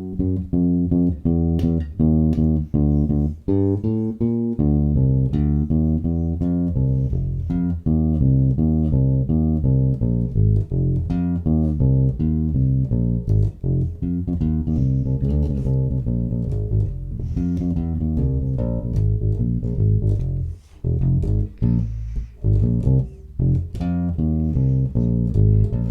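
Dingwall ABZ 4 four-string passive bass guitar on its neck pickup, recorded direct, playing a continuous jazzy line of plucked notes that mimics a double bass. Round, solid low end, with a few short breaks between phrases.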